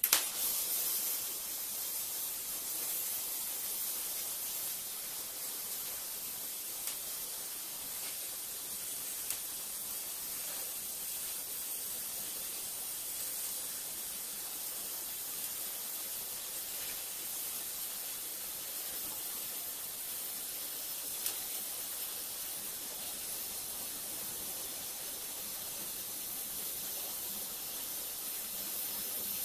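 Electric arc welding on steel: the arc strikes at the very start and runs as a steady hiss, with a few short louder pops.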